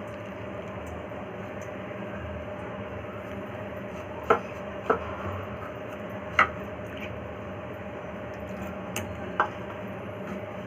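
A spoon clinks sharply against a bowl about four times, spread out, while cornflour is stirred into water to make a slurry. A steady low hum runs underneath.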